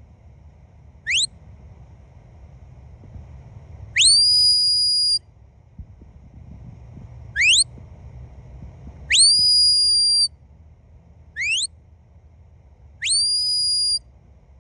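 A dog handler's whistle blown in three repeated pairs: a short rising chirp, then a long steady high note of about a second. These are whistle commands to a dog.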